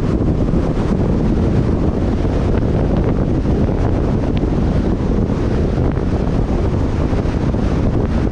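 Steady rumble of wind and road noise from a car driving at speed, heaviest in the low end, with no distinct events.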